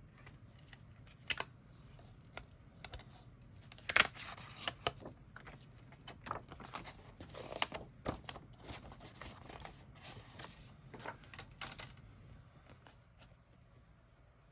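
CD single packaging being handled: irregular light clicks, taps and rustles of paper and plastic, sharpest about four seconds in.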